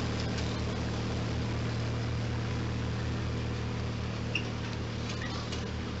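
Red riding lawn tractor's engine running steadily as it drives away: a low steady hum with a fast pulsing beat, easing slightly near the end.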